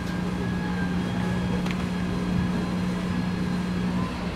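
A steady low-pitched hum that stops shortly before the end, over a constant low background rumble, with one brief click partway through.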